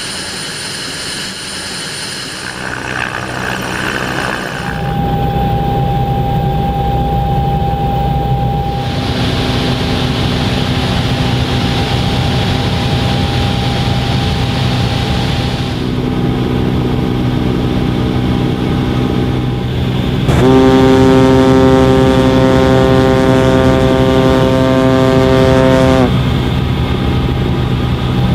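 Steady engine and rotor drone of an aircraft heard from inside the cabin, its character shifting abruptly several times. Past the middle, for several seconds, a louder pitched hum with many even overtones sits over the drone.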